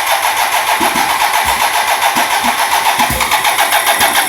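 Starter motor cranking a 1987 BMW K75S's three-cylinder fuel-injected engine with an even rapid pulse, the engine firing a little now and then as low thuds but not catching. Clunky sounds come from around the throttle bodies; the owner is not sure what causes them.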